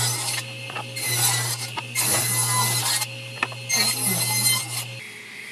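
Table saw running and ripping a 2x4 lengthwise. The blade's cutting noise comes in about four loud passes over the steady motor hum, which cuts off near the end.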